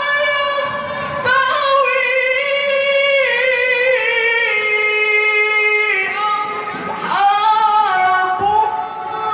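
A male qari chanting Quran recitation (tilawah) in a high voice through a microphone, holding long ornamented notes that step down in pitch. There is a short break about six and a half seconds in, then a new phrase begins.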